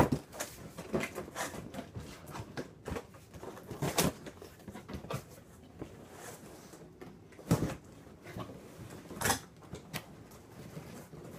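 Cardboard box and packaging being handled and opened: scattered knocks, thumps and rustles, with the loudest knocks at the start, about four seconds in, and twice near the end.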